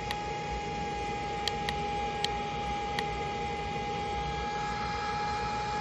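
Small electric fan running steadily, a whirr of moving air with a steady motor whine, with a few faint ticks.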